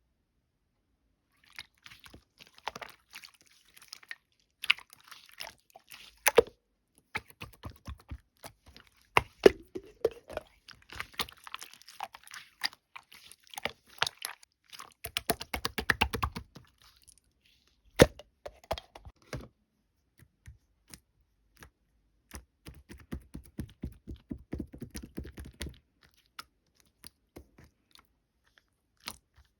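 Slime being squished, pressed and stretched by hand, making irregular sticky clicks and small pops. There is a dense, quick crackle about halfway through and a short lull before a further run of clicks.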